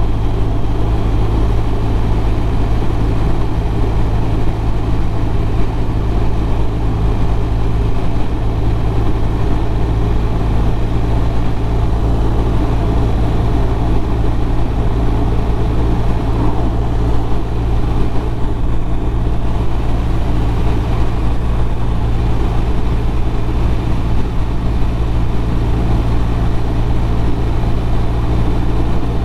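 BMW R1200RT's flat-twin boxer engine running steadily at cruising speed, with wind and road noise.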